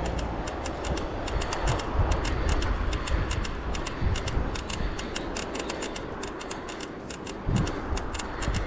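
Road bike ride heard from the bike: a low wind rumble on the microphone with a run of rapid, light ticks, several a second.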